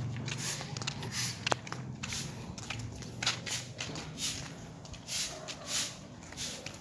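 Footsteps of someone walking at a steady pace on a concrete road, about one step every three-quarters of a second, with a brief thin whistle-like tone about a second and a half in.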